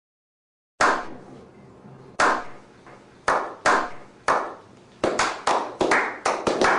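Slow clap: single hand claps, starting about a second apart and speeding up into quicker clapping in the last couple of seconds.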